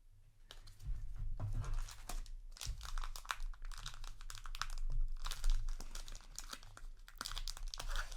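A foil trading-card booster pack wrapper crinkling and tearing as it is ripped open by hand, a dense run of crackles starting about half a second in. The wrapper is stiff and hard to tear.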